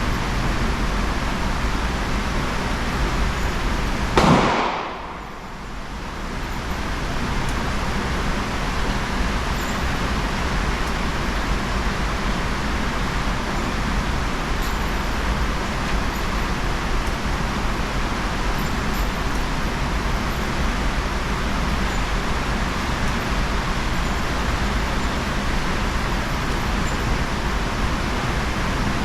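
A single shot from a .22 single-action revolver about four seconds in, over a steady rushing noise.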